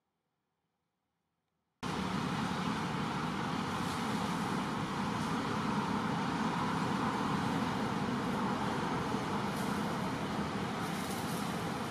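Steady rushing background noise with a faint even hum, cutting in suddenly about two seconds in after silence.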